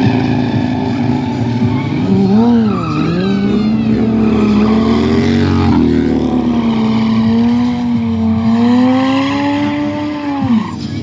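Motorcycle engines held at high revs during burnout and spinning stunts, tires squealing on the asphalt. The revs dip and climb as the throttle is worked, a couple of times early on and sharply near the end.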